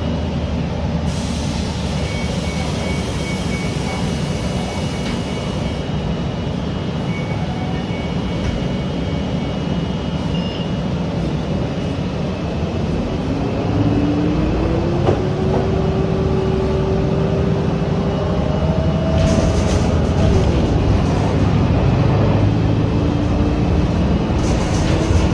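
City transit bus running, its engine and drivetrain rumbling steadily. About halfway through a whine rises in pitch as the bus accelerates, then holds steady. Brief hissing comes later.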